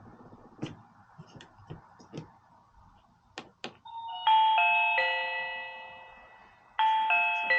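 A few light clicks, then an electronic doorbell chime plays a several-note ding-dong tune about four seconds in, ringing out and fading. It starts over once more near the end.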